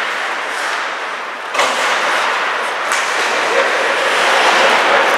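Ice hockey play in an echoing indoor rink: a steady hiss of skate blades cutting the ice, growing suddenly louder about a second and a half in, with a sharp click near three seconds.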